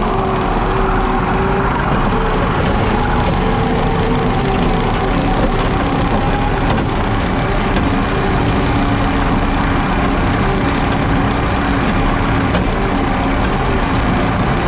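JCB Teleskid skid steer running steadily under load while driving a 7-foot Jenkins bush hog through grass: a constant engine and mower drone with wavering mid-pitched tones through it.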